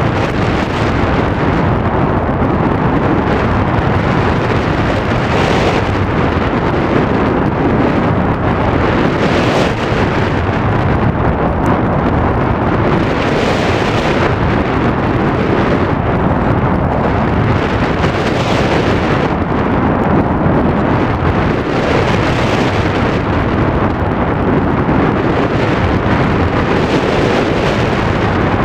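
Small aircraft in flight: steady engine and propeller noise mixed with heavy wind buffeting on the microphone, the hiss swelling every few seconds.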